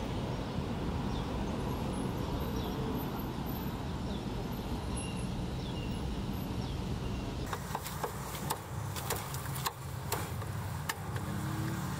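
Steady outdoor traffic rumble with faint high chirps. About two-thirds of the way in it gives way to a run of sharp, irregular knocks, one or two a second: a cleaver and hands working roast pork knuckle on a round wooden chopping block.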